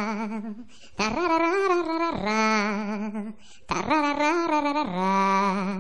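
A voice singing a slow wordless tune in phrases, each a higher note followed by a lower, longer note with a strong wavering vibrato.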